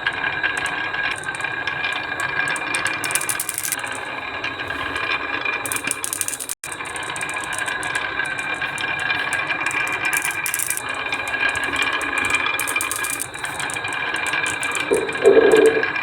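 Toys rolling down a HABA wooden marble run, making a continuous dense clattering rattle on the wooden tracks, with a louder clatter near the end.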